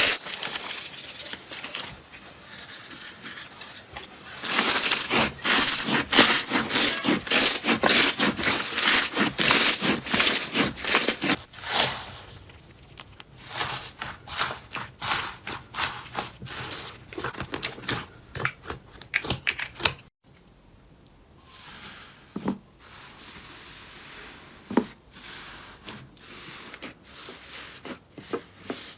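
Slime being squeezed and pressed by hand, making dense crackling and popping. About two-thirds of the way in it cuts to a quieter stretch of sparse pops and squishes.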